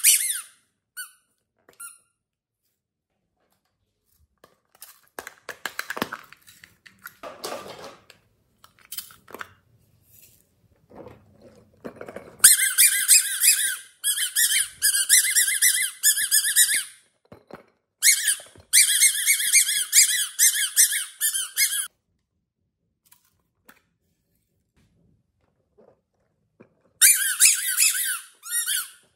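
Hollow rubber cat-shaped squeeze toys being squeezed in the hands, giving three bursts of loud, high, fluttering squeaks a few seconds long, the first just before the halfway point. Quieter rubbing and handling of the rubber comes before them.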